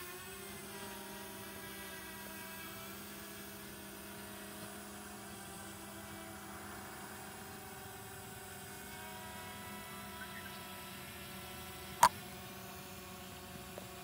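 Hubsan Zino Mini Pro quadcopter hovering at a distance, its propellers making a steady hum of several held tones. There is one sharp click near the end.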